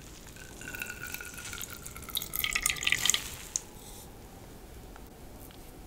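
Water trickling and dripping as a washcloth is squeezed out, loudest about two to three seconds in, with a single click just after.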